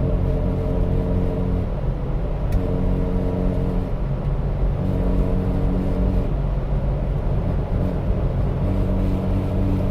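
1995 Jeep Grand Cherokee (ZJ) driving at highway speed, with a steady low rumble and a pitched buzz that comes and goes in stretches of a second or two.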